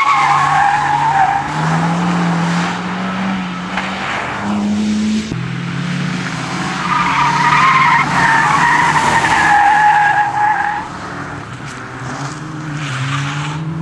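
Fiat Seicento rally car's engine running hard as its tyres squeal through corners, once at the start and again for a few seconds midway. Near the end the engine revs rise as it accelerates away.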